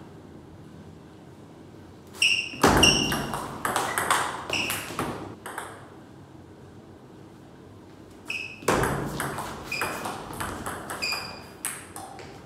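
Two table tennis rallies: the ball clicks quickly back and forth between paddles and table, its bounces ringing with a short ping. The first rally starts about two seconds in and lasts about three seconds; the second starts about eight seconds in and runs nearly four seconds. Each opens with a heavier knock.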